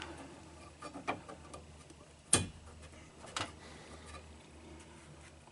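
A few small, sharp clicks and taps of parts being handled, the loudest about two seconds in, as a nylon washer is fitted onto the pin of a window regulator arm inside a car door.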